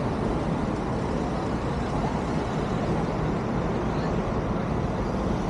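Steady road traffic noise from vehicles crossing the bridge, an even roar with no distinct events.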